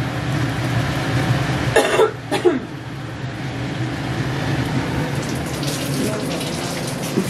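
Puri deep-frying in hot oil in a steel kadai, a steady sizzle over a low hum. A person's brief vocal sound about two seconds in.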